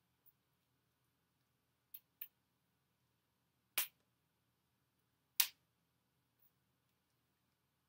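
A few short, sharp clicks against near silence: a pair close together about two seconds in, then single, louder ones near four and five and a half seconds.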